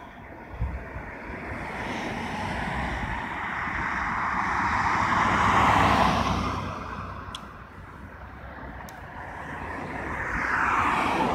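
Cars passing by on the road: tyre and engine noise swells and fades, the loudest pass about six seconds in, another approaching near the end.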